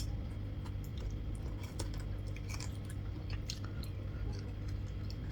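Close-up chewing and biting of food: irregular small crunches and wet clicks, over a steady low hum.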